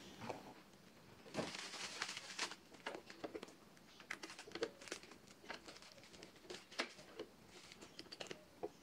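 Bubble wrap and plastic film crinkling and rustling as they are pulled off ceramic jars, with scattered small clicks. Scissors cut through the plastic film near the end.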